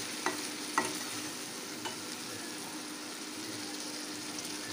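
Stuffed brinjals and tomatoes sizzling in mustard oil in a kadhai on high flame, stirred with a spatula. Two sharp taps of the spatula on the pan come within the first second.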